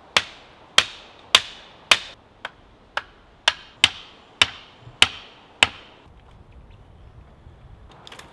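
Hammering on wood: about eleven sharp blows at roughly two a second, each ringing briefly, stopping a little under six seconds in.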